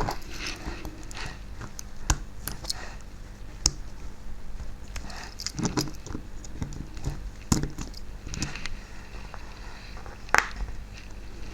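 Scattered small clicks and taps of hands and small tools handling the plastic and metal parts of a Mainline Class 45 OO-gauge model locomotive during disassembly, with a sharper click about ten seconds in.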